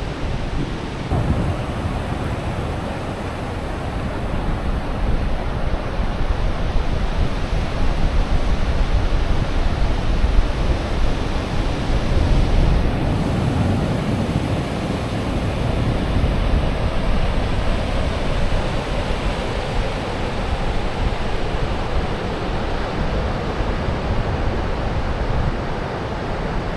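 Ocean surf breaking on the beach: a steady wash of waves that swells a little partway through, with wind rumbling on the microphone.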